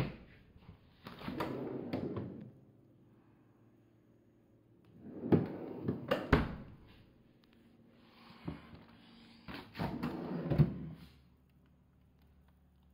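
Bouts of rustling and knocking a few seconds apart, with the sharpest knocks about six seconds in and again near ten and a half seconds, typical of household handling sounds.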